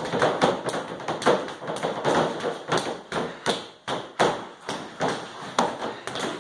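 Bare fists slapping and thudding into a freestanding body opponent bag (a padded torso dummy on a weighted base) in a rapid, uneven run of punches, about two to three a second.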